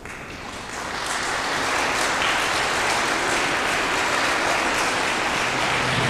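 Audience applauding, the clapping swelling over the first second or so and then holding steady. Near the end a low musical tone comes in under the clapping.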